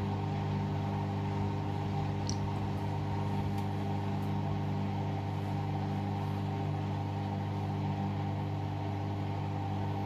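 Hoover All In One washing machine running with a steady motor hum, with a couple of faint ticks about two to four seconds in.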